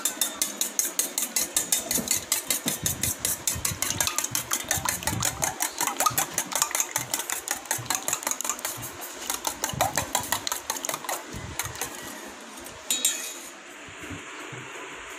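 Raw eggs being beaten with a metal utensil in a stainless steel bowl: a fast, even clinking, about five or six strokes a second, that stops near the end, followed by one sharper knock against the bowl.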